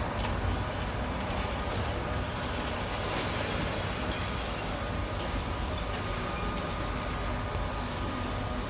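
High-reach demolition excavator working a concrete building with its crusher: a steady low rumble from its diesel engine and hydraulics, with a faint steady whine over it.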